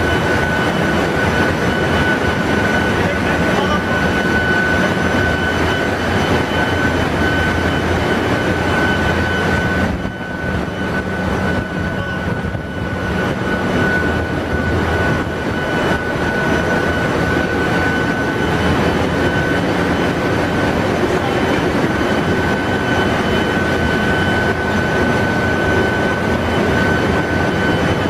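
Loud, steady machinery noise of a ship's engine room: a constant high-pitched whine over a low hum. It drops briefly about ten seconds in, then comes back up.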